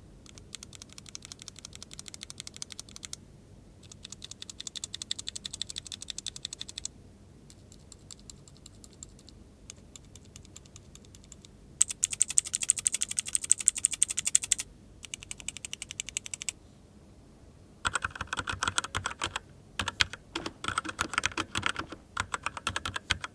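Mechanical key switches on a switch-tester pad being pressed rapidly, one switch type after another. The typing comes in about eight separate runs of a few seconds each, and some switch types sound brighter and louder than others.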